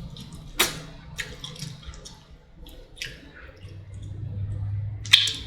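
Wet, sticky chewing and lip-smacking sounds of eating sauce-covered fried chicken, heard as scattered separate smacks and clicks, with a low steady hum for about a second and a half near the end.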